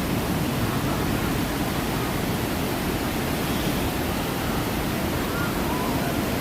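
Steady rushing of falling water, an even unbroken roar.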